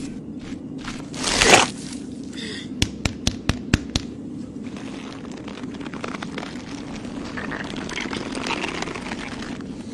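Dry earth and sand crunching and scraping as a wooden stick digs into hard ground and a clump of sand is wrung out by hand. There is a burst of rushing noise about a second and a half in, then a quick run of sharp knocks around three to four seconds in, all over a steady low hum.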